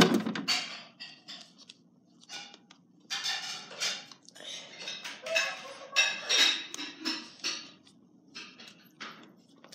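Irregular clattering and clinking of small hard objects being handled, in uneven bursts with brief pauses.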